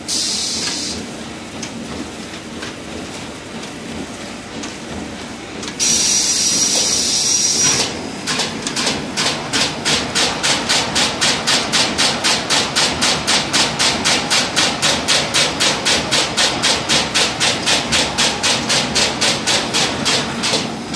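Flow-wrapping (pillow-pack) machine running. There is a short hiss at the start and a louder hiss with a thin whistle from about 6 to 8 seconds in, then a steady, regular clacking about three times a second as the machine cycles.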